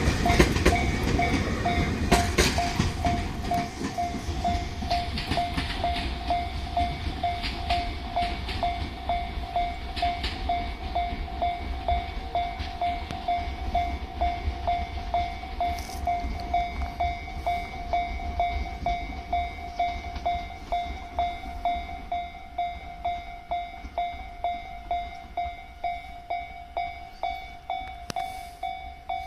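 A Japanese level-crossing warning bell dings steadily at an even pace while a Tobu Railway train runs over the crossing, its wheels clicking over the rail joints. The train noise fades over the first ten seconds or so, and the bell keeps ringing with the crossing still closed.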